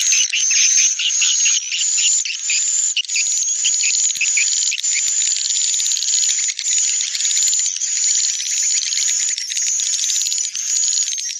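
Recorded swiftlet lure sound played for a swiftlet house: a call ('panggil') track mixed in stereo with a roosting ('inap') track. It is dense, rapid chirping and twittering over a steady high trill.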